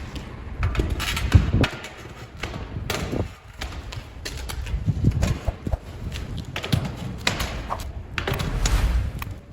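Irregular knocks and thuds with scraping between them, a run of separate strikes of hand work on a hard surface.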